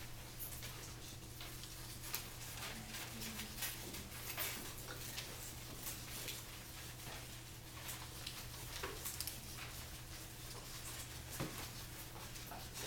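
Scissors snipping paper and paper being handled, in many light, irregular clicks and rustles, over a steady low hum.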